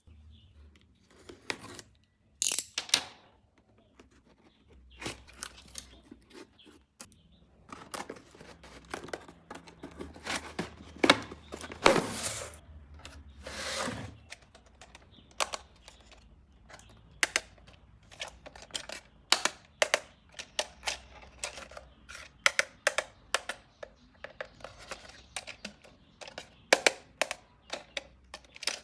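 Toy packaging being handled and opened by hand: plastic and cardboard rustling and tearing in a few longer swishes, among many sharp clicks and taps.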